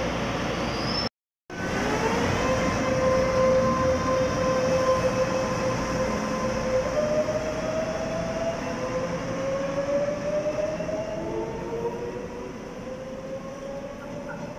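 Train running on the rails, with several whining tones that slowly rise in pitch while it is loudest, then fading toward the end. It cuts in abruptly after a short gap about a second in.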